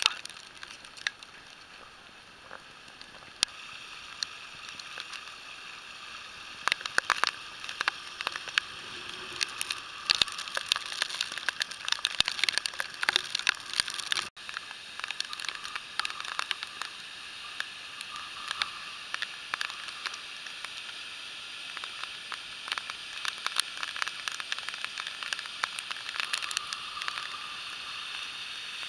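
Floodwater running over a track and a stream in spate make a steady rushing hiss. Many sharp crackles and clicks on the microphone sit over it, thickest in the middle and near the end.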